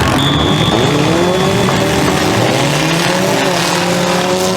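Demolition derby car engines revving hard around a figure-8 track, their pitch rising and falling as the cars accelerate and back off, over a steady din of engine noise. A thin high squeal sounds briefly near the start.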